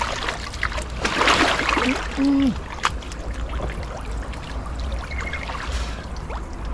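Water splashing and sloshing as a person wades waist-deep through a pond, heaviest about a second in, with trickling water between. A short voiced sound a little after two seconds in.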